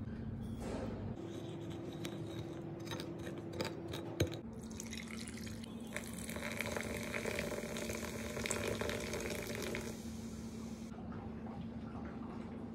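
A few light clinks of a metal spoon against a ceramic bowl, then from about five seconds in a thin stream of liquid poured into a tall glass over ice and watermelon chunks, a steady trickling splash that lasts about five seconds. A faint steady hum runs underneath.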